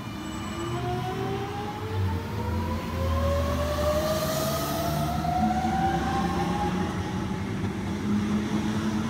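Sydney Trains Millennium (M-set) double-deck electric train pulling away from the platform: its traction motors give a steadily rising whine over the low rumble of the wheels as it gathers speed. A brief hiss comes about four seconds in.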